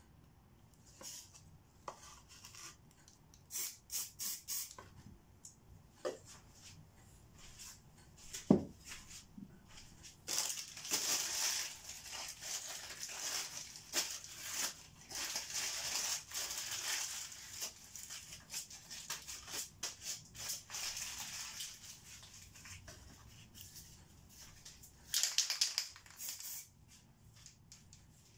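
Spray-paint cans and a paper stencil being handled: scattered clicks and knocks, with a sharp knock about eight seconds in. Then an aerosol spray-paint can hisses for about twelve seconds with a fluttering edge, and once more briefly near the end.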